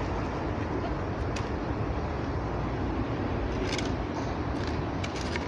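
Steady low outdoor rumble with no speech, broken by a few short sharp clicks: one about a second in, and small clusters past the middle and near the end.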